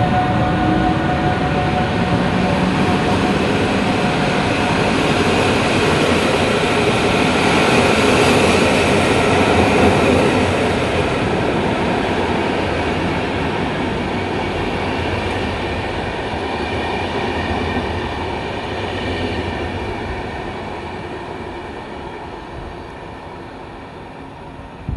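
Intercity passenger train hauled by the EU160 electric locomotive (a Newag Griffin) running past on the track. The noise is loudest about eight to ten seconds in, then fades steadily as the train draws away.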